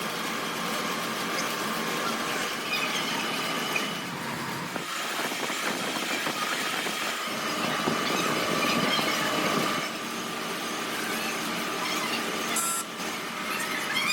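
Workshop machine running steadily, a continuous mechanical noise with a thin steady whine over it.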